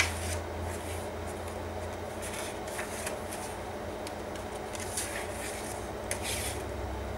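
Paper pages of a handmade junk journal being turned and smoothed by hand: a sharp tap at the start, then a few short paper swishes and rustles over a steady low hum.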